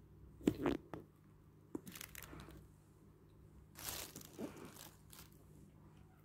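A few short rustling and crinkling handling noises while eating, the longest about four seconds in, over a quiet room.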